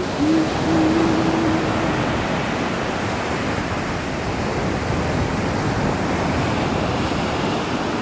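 Ocean surf breaking and rushing on the beach, a steady wash of noise. For about the first two seconds a single low tone is held over it, then stops.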